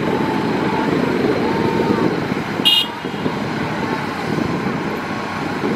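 Hitachi ZX210 hydraulic excavator running with a steady rough low diesel rumble and a faint wavering whine. A brief high-pitched chirp comes a little under three seconds in.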